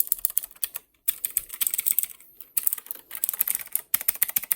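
Fast typing on a Corsair K63 wireless mechanical keyboard with Cherry MX Red linear switches: a rapid run of key presses with brief pauses about one, two and a half and four seconds in.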